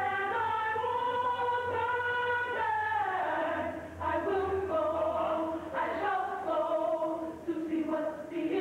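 Gospel choir singing in harmony, holding long notes that change pitch every second or two, with a short dip about four seconds in.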